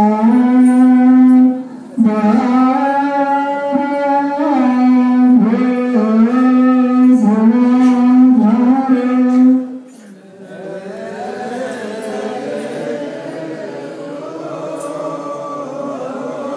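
Ethiopian Orthodox woreb chant. A single male voice sings a long, wavering melismatic line into a microphone, with a brief break about two seconds in. About ten seconds in, a group of male voices takes up the chant together, more quietly.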